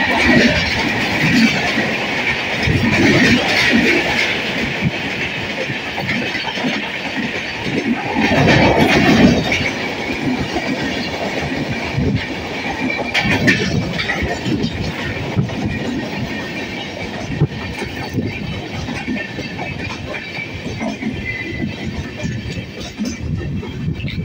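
Indian Railways express passenger coaches passing close by at speed: a continuous rush of wheels on rail with dense rhythmic clatter over the rail joints, and a steady high-pitched squeal above it. The sound eases slightly as the last coaches go by.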